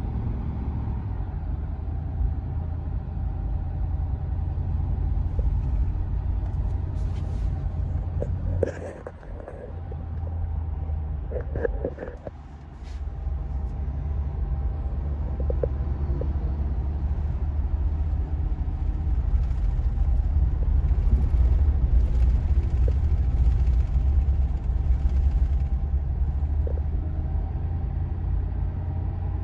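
Steady low rumble of road and engine noise inside a moving pickup truck's cab, with a few brief knocks and rattles about a third of the way in and two short dips in loudness.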